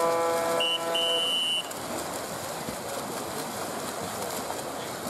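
A game buzzer sounding with a steady, horn-like tone that cuts off about a second in. Over its end a referee's whistle gives a short blast and then a longer one. After that there is a steady wash of splashing water from the swimmers.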